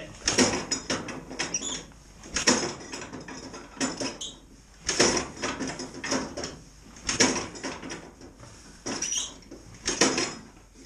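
A 1939 Allis-Chalmers B tractor being hand-cranked for a choked cold start at 31 °F: five clattering pulls on the crank, one about every two to three seconds, without the engine catching and running.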